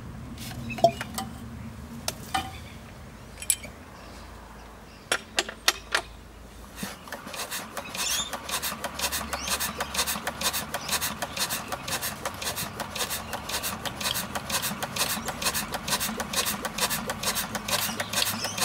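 Old Hangzhou single-cylinder horizontal diesel engine being hand-cranked from cold after long storage, a few scattered clanks, then catching about six seconds in and running with a steady rapid chuff of firing strokes, about six a second, from an open exhaust with no muffler fitted.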